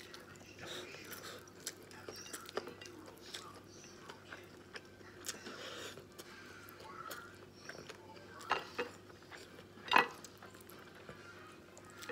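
Close-up eating sounds: fingers working rice on a ceramic plate and chewing, with scattered small clicks and clinks against the plate. The loudest, a sharp clink, comes about ten seconds in.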